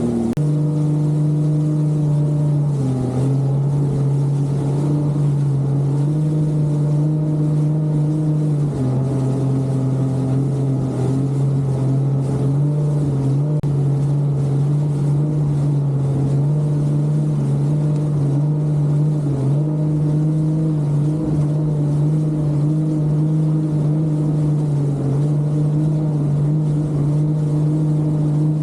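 Jet ski engine running steadily at speed, a constant drone whose pitch dips and recovers slightly a few times.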